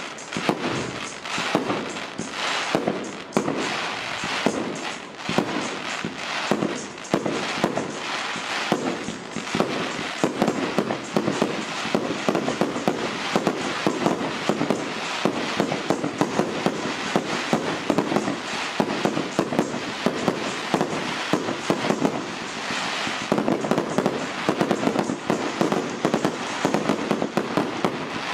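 Fireworks display: many shells bursting in quick succession, several bangs a second over a continuous din, without a pause.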